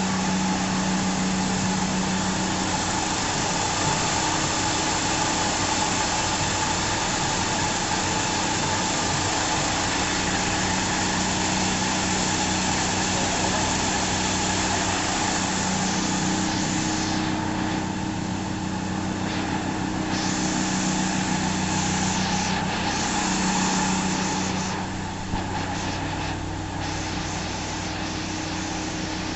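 CNC foam cutting machine running: a steady mechanical hiss and hum, with motor tones that drop out and come back as the machine moves. It gets slightly quieter about 25 seconds in.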